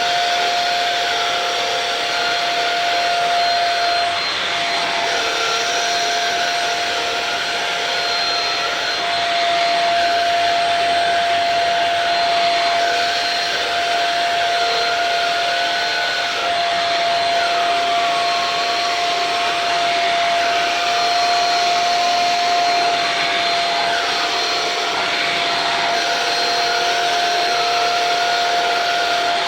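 Shark Rocket vacuum running steadily, its motorized mini brush tool working over loose fabric to lift cat hair, with the suction-release valve open. A steady whine with a second, higher tone that wavers up and down.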